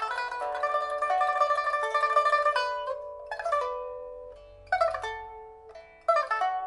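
A 1985 Shen Huanchun pipa of Cochinchina rosewood, newly fitted with a soundboard and frets, being played: a fast, dense run of plucked notes for the first two and a half seconds or so, then four separate strummed chords spaced out, each ringing and dying away.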